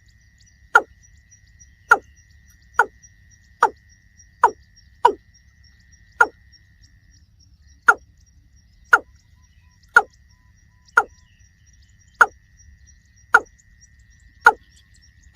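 Watercock calling: a steady series of short, hollow notes, each dropping quickly in pitch, about one a second.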